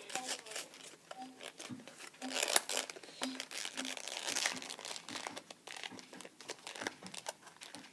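Cardboard toy blister packaging crinkling and tearing in irregular crackles as it is forced open, the pack resisting.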